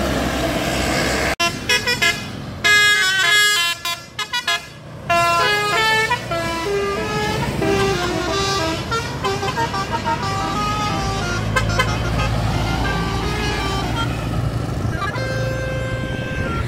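A bus's basuri telolet horn playing a tune of quick, stepping notes over the bus engine's low running. Near the end a single chord is held.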